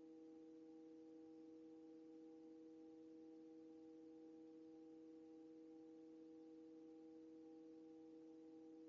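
Near silence with a faint steady hum of several even pitched tones from the landed helicopter, still running before shutdown.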